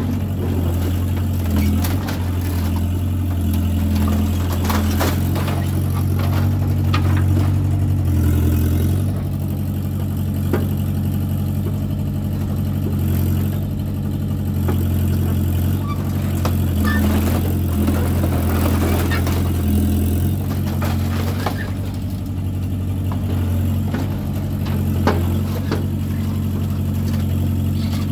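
Samsung mini excavator's diesel engine running steadily, its pitch stepping up and down several times as the boom and bucket work. Scattered metal clanks and scrapes come from the bucket on the burned-out Ford Bronco body.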